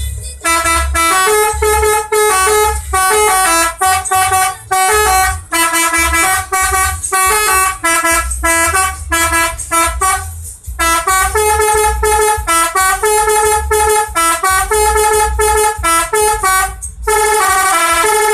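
Telolet horn, a multi-trumpet bus horn, playing a quick melody of short stepped notes. It breaks briefly about ten seconds in, and near the end changes to a denser run of overlapping notes, over a steady low rumble.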